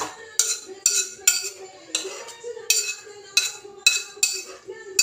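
Metal spatula scraping and knocking against a wok as cooked food is pushed out of it into a glass bowl, about two sharp metallic clanks a second, each with a short ring.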